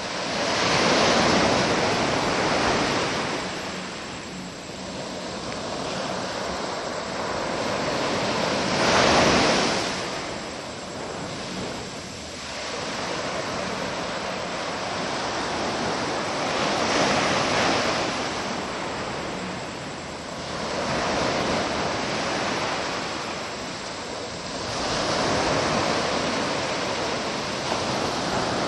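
Ocean surf washing onto the shore: a steady rush of noise that swells into a louder breaking wave every few seconds.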